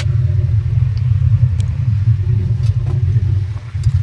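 Polaris RZR XP 1000 side-by-side's twin-cylinder engine running under way on sand, heard as a loud, steady low rumble that dips briefly near the end, with a few light knocks.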